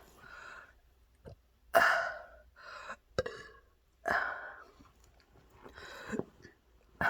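A woman burping into a pillow: two loud burps about two seconds apart and a third starting right at the end, with fainter sounds between them.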